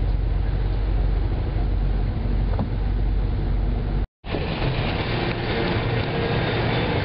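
Steady rain noise with a heavy low rumble. It cuts out for a moment about four seconds in and then resumes.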